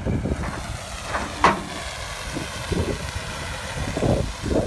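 Wind buffeting the microphone in an uneven low rumble, with a brief sharp squeak about one and a half seconds in.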